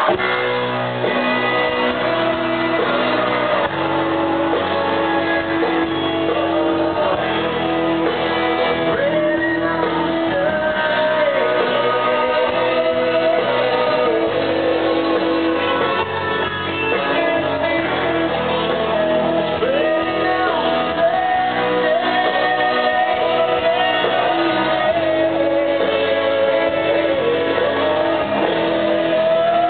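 Live country-rock band performance: a man sings lead into a microphone while playing electric guitar, with the band behind him, echoing in a large arena. The sound is muffled, with its top end cut off.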